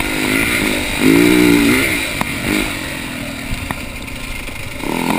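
Husaberg dirt bike engine being ridden on and off the throttle, its note rising and falling in short revs, then easing to a lower, quieter run about halfway through. Two sharp knocks are heard along the way.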